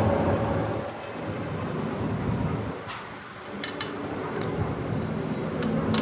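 Workshop machinery running with a steady low hum, with several short, sharp clicks in the second half.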